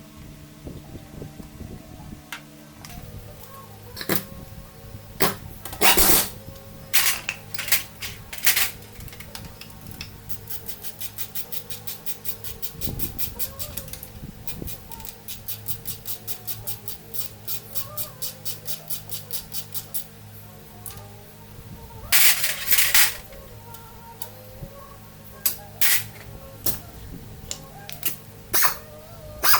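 Hand-tool work on a scooter's rear wheel: scattered sharp metal clanks and knocks, with a run of rapid, even clicks through the middle that slows to about three a second.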